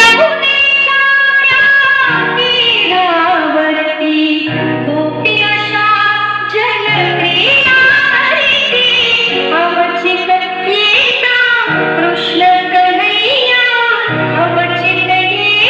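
Bollywood-style song with a woman singing long, gliding held notes over a steady low backing, played loud through a DJ sound system.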